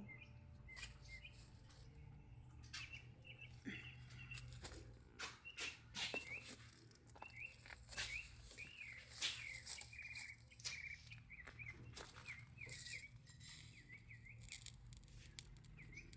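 A small bird chirping over and over in short, high, bending notes, with scattered sharp clicks and taps and a faint low hum underneath.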